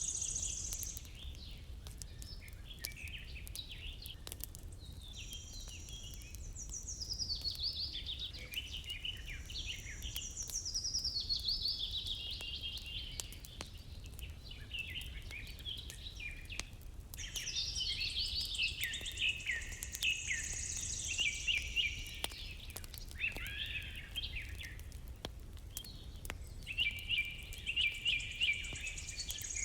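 Several wild songbirds singing and chirping continuously in quick, high phrases, over a steady low rumble with occasional faint clicks.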